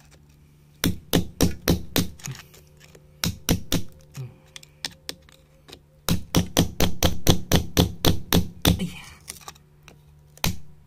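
A hammer striking a metal chisel to chip into soft reddish clay rock, in runs of quick sharp blows about five a second with short pauses between.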